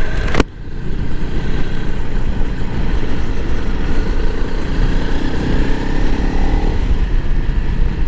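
A Honda CRF300L Rally's single-cylinder engine running as the bike is ridden, its pitch drifting up and down, under a heavy low rumble. There is a sudden sharp break about half a second in, after which the level dips briefly and builds back.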